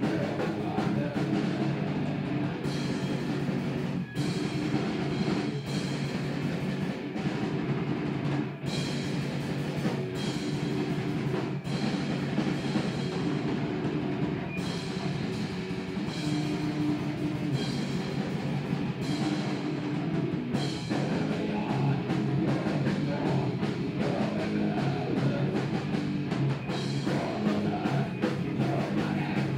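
Heavy rock band playing live: electric guitar over a drum kit, with frequent drum and cymbal hits.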